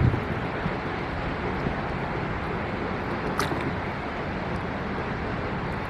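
Steady rushing water noise around a rowing boat on a lake, with a dull knock at the start.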